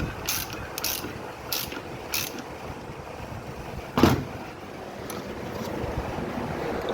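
Ratchet wrench worked in short strokes, four clicking runs in the first couple of seconds, then a single loud metal knock about four seconds in.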